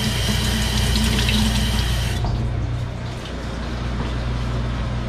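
Water running from a kitchen faucet over hands into a stainless steel sink, shutting off about two seconds in. A steady low hum runs underneath.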